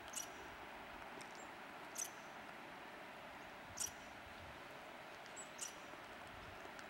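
Faint, short, high-pitched squeaks, four of them about every two seconds, from a small wild animal's call, over a quiet background hiss.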